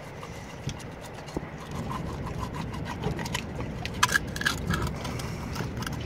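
Fingers picking and scraping marine growth (seaweed and shell debris) off a coated test plate lying on concrete: irregular small clicks and scratches, busier in the second half, over a low background rumble.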